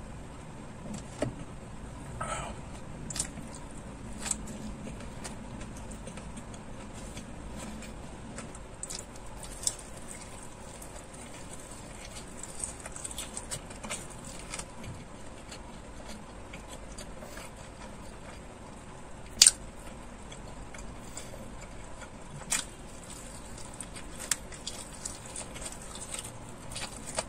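Close-miked eating sounds: wet chewing, lip smacks and sharp crunchy bites into a crisp fried chicken leg piece, with swallowing from a soda bottle at first. One crunch or snap a little past the middle is much louder than the rest.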